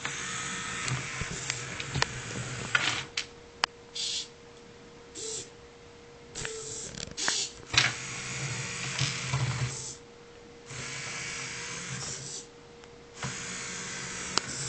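Small electric gear motors of a homemade Arduino robot whirring in repeated stop-start bursts, some a second or two long and some brief, with a few sharp clicks between. The pattern fits a robot that drives, stops and turns on its own. A faint steady tone runs underneath.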